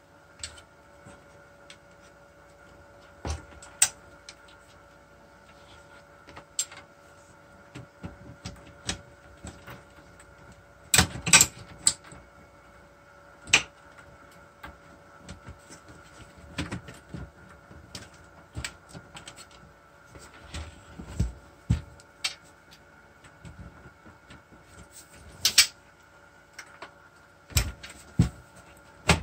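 Scattered clicks, taps and knocks of a cassette deck's metal and plastic casing and parts being handled and fitted back together, with a louder cluster of knocks about eleven seconds in, over a faint steady hum.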